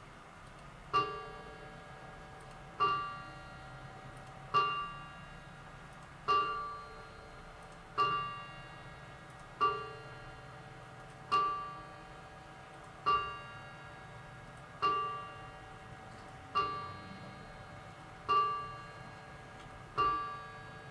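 Late 19th-century French Samuel Marti 8-day mantle clock striking twelve o'clock: twelve evenly paced metallic strikes about one and a half to two seconds apart, each ringing on and fading before the next.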